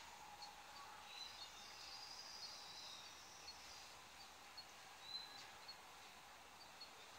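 Near silence: faint outdoor background with scattered small, high-pitched chirps.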